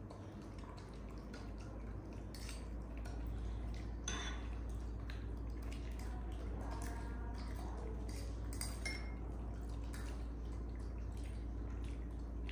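A spoon clinking and scraping against a dish in a run of small, irregular clicks and taps, with a brief squeak partway through.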